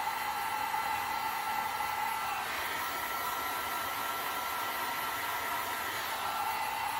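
Einhell heat gun blowing steadily, a fan whine over the hiss of hot air, as it heats PVC waste pipe to soften it. The whine changes in tone about two and a half seconds in, as the gun is moved around, and settles back near the end.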